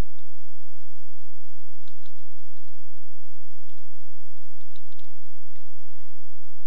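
A few scattered computer keyboard keystrokes, irregular and a second or so apart, typing code in a text editor, over steady background noise.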